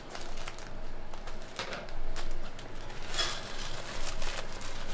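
Plastic packs of raw minced meat crinkling and rustling as they are handled, cut open and squeezed out, with soft pats of the meat dropping into a frying pan.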